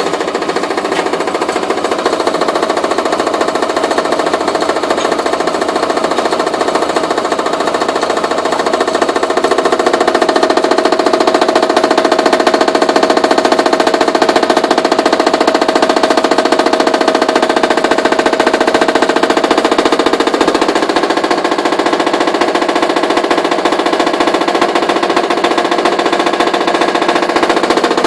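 LG WD-1250ERD washer-dryer running with a loud, rapid, steady hammering rattle, the fault noise the machine is making. Its tone shifts about twenty seconds in.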